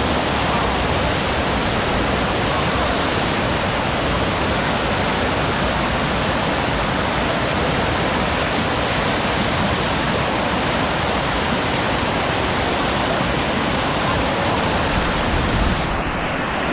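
Steady, loud rushing of flowing water, even and unbroken; its highest hiss drops away near the end.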